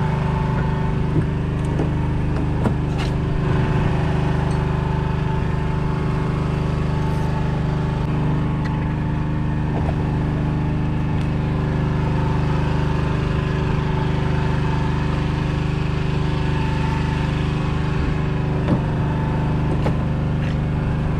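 Boat's generator running at a constant speed, a loud, even drone that does not change, with a few faint ticks over it.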